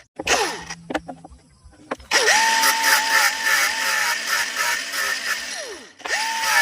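An electric drill winds down, spins up again about two seconds in and runs at a steady whine with a regular rattle. It winds down near the end and starts once more.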